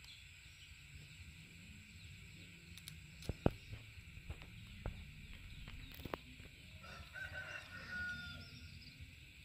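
A few sharp clicks and snaps as a green lotus seed pod is picked apart by hand, followed near the end by a rooster crowing once, faint and wavering.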